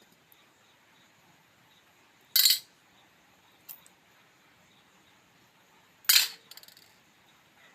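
Two short, sharp bursts about four seconds apart, with a faint click between them.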